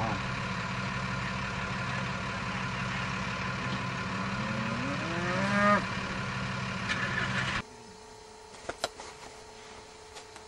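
A beef cow moos once about five seconds in, one long call rising in pitch, over the steady hum of an idling engine. The hum cuts off abruptly a little past halfway, leaving a few faint knocks.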